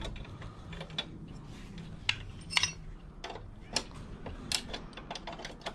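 Hand tool clinking and clicking on the rear axle and chain-adjuster hardware of a small motorcycle as they are loosened: irregular sharp metallic clicks, a few a second apart.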